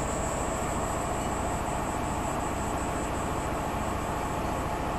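Daewoo Puma 300 CNC turning centre running, a steady mechanical hum with a constant high whine.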